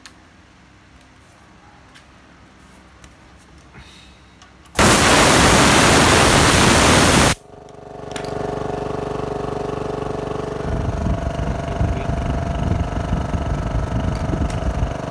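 Small 11-litre, 1 hp air compressor: compressed air hisses out loudly for about two and a half seconds as the tank is bled down, then stops abruptly. About a second later the compressor motor starts and keeps running with a steady hum.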